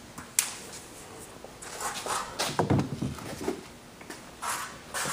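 A large thin sheet-metal panel handled and flexed over a wooden buck: a sharp tap about half a second in, then rustling and wobbling of the metal. Near the end comes a short squirt from a trigger spray bottle.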